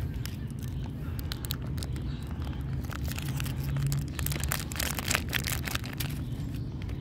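Plastic candy wrapper crinkling as chocolate balls are shaken out of it, a cluster of crackles around four to five seconds in, over a steady low rumble like distant traffic.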